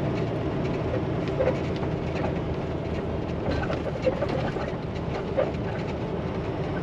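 Semi-truck's diesel engine running steadily at low road speed, heard from inside the cab as a low drone, with occasional small clicks and squeaks from the cab.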